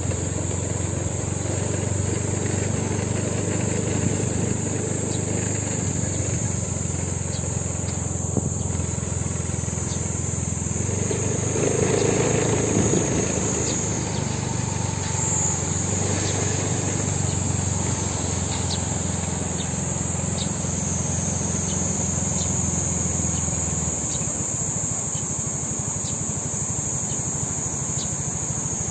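A steady, high-pitched insect chorus over a low, continuous rumble that drops away about 24 seconds in.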